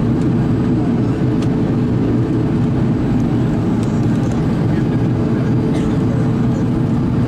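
Steady cabin noise of an Airbus A310-300 in descent: a low engine-and-airflow rumble from a seat over the wing, with a faint steady hum.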